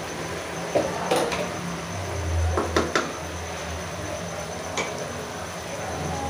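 A few light clinks and knocks of kitchen utensils against an aluminium pressure cooker pot as spices are added, over a steady low hum.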